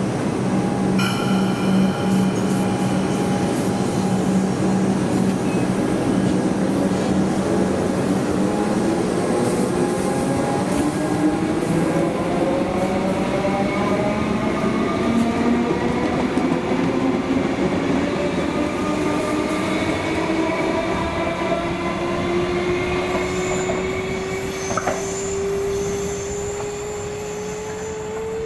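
Melbourne Metro electric suburban train pulling away from the platform: the whine of its traction motors climbs steadily in pitch as it gathers speed, over the rumble of wheels on the rails, growing a little fainter near the end.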